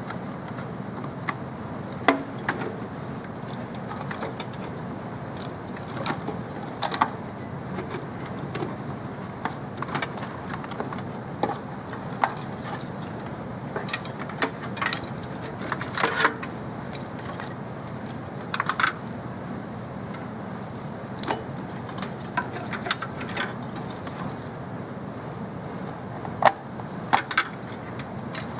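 Irregular small clicks and metallic clinks of computer parts being handled and fitted, over a steady low hum.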